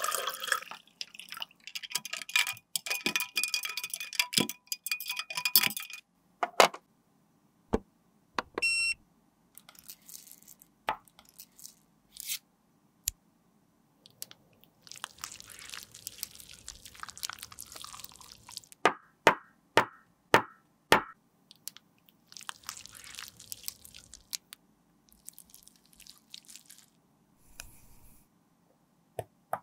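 Handling sounds of a clear plastic lip gloss tube being rinsed and refilled: water splashing and bubbling in a glass for the first few seconds, then scattered sharp plastic clicks and taps, including a quick run of about six clicks a little past the middle, with stretches of soft hiss in between.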